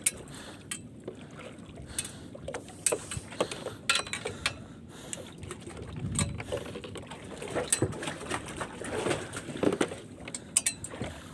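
Scattered, irregular knocks and clicks of hands and gear working on a small fishing boat as a heavy catch is hauled up on a longline.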